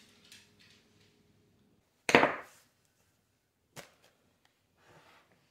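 A kitchen knife set down on a granite countertop: a loud clatter about two seconds in, then a short, lighter click a second and a half later, and a faint rustle of hands near the end.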